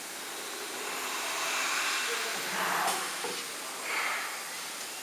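Compressed-air hiss around a CNC wood router's spindle head, swelling in the middle, with two short louder blasts of air near the middle and toward the end. A faint rising whine begins near the end.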